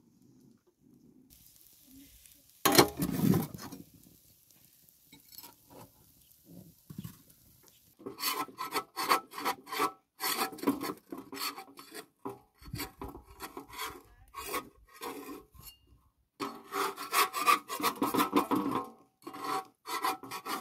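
Repeated rubbing or scraping strokes, a few a second, in runs from about eight seconds in, after a quieter start broken by one louder scrape near three seconds.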